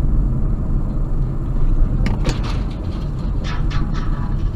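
Steady low rumble of a car driving on a highway, heard from inside the cabin, with a few short sharp sounds between about two and four seconds in.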